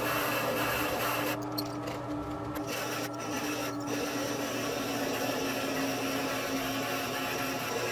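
Wood lathe running steadily as a hollowing tool scrapes out the inside of a spinning cedar blank, with a constant motor hum under the cutting. The scraping hiss drops out briefly twice in the first half.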